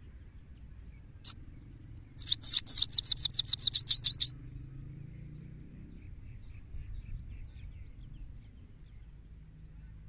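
Male goldfinch singing: one sharp high call about a second in, then a loud, rapid twittering run of about fifteen quick notes lasting two seconds, with a few faint notes after.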